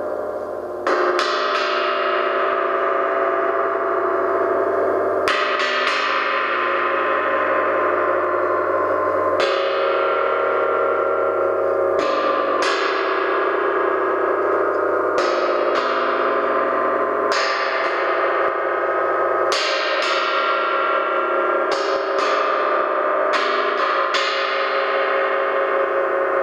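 Large bronze gong struck with a mallet every two to four seconds, each stroke swelling into a long shimmering ring that carries on between strokes. The gong is being played after a stress-fractured section was cut out of its rim down to the edge, the crack having made it conflict with itself when rung.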